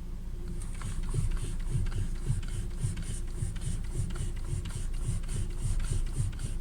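Rhythmic mechanical clacking, about three knocks a second, typical of a jacked-up Lada Vesta front wheel being rocked side to side by hand. The free play comes from a worn steering tie rod ball joint and tie rod end.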